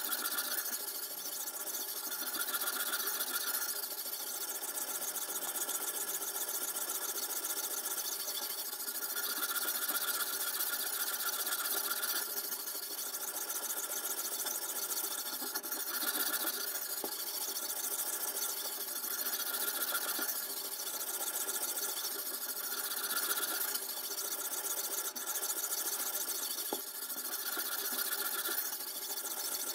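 Sharpening stone in a toohr #2 guided-rod sharpener being stroked back and forth along the edge of a clamped steel chef's knife: a steady abrasive rasp of stone on steel that swells with each stroke, every couple of seconds.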